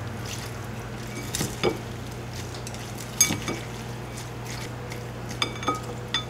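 Wooden chopsticks tossing sauced kelp noodles and shredded cabbage in a glass mixing bowl, with a handful of sharp clinks of the chopsticks against the glass over a steady low hum.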